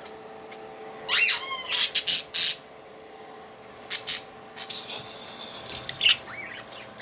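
Pet budgies squealing and chirping: a rising-and-falling squeal about a second in, taken for a budgie mimicking a squeaky toy, then small chirps near the end. Several sharp clicks and a stretch of rustling come in the middle.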